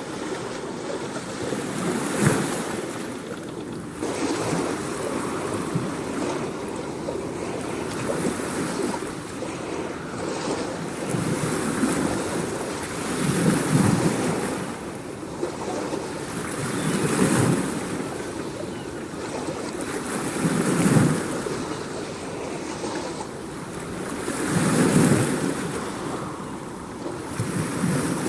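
Ocean surf washing in waves, a rushing swell rising and falling about every four seconds.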